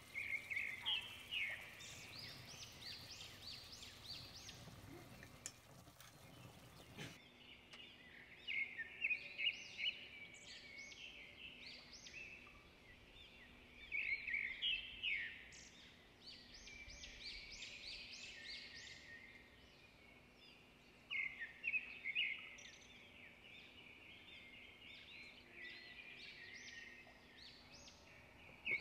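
Small birds chirping and twittering in repeated bursts of short high calls, over a faint steady hum.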